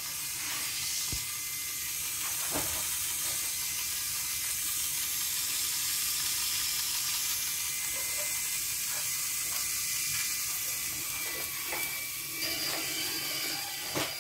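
A steady hiss throughout, with scattered light clicks of Lego parts being handled. Near the end a faint steady whine joins as the small Lego electric motor of the pulley starts winding the line.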